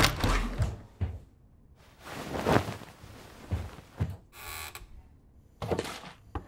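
Scattered thumps, knocks and short rustles in a small room, ending in a sharp click: a door being handled and things being pulled from a shelf.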